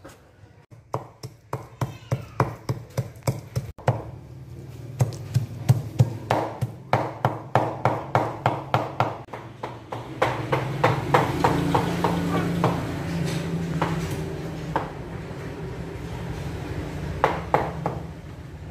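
Cleaver chopping raw pork on a thick wooden chopping block: steady, rapid strikes, about three a second. After about ten seconds the strikes give way to a steadier background sound with only a few scattered knocks.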